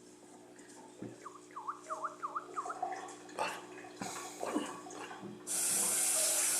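A toddler makes a quick run of five or six high squeaky chirps, each dipping and rising in pitch. About five seconds in, a tap is turned on and water runs with a steady hiss.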